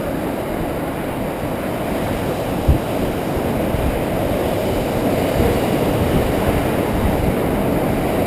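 Steady rushing wind and road noise on the camera's microphone while riding along a road, with one brief low thump a little under three seconds in.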